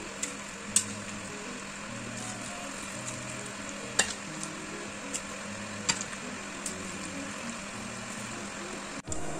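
Metal spatula stirring and scraping grated radish mixture around a large steel wok over a steady hiss, with a few sharp clinks of the spatula against the pan. The sound stops abruptly near the end.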